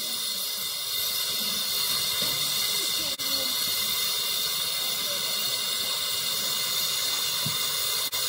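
Small 10¼-inch gauge steam locomotive letting off steam, a steady even hiss that briefly drops out twice.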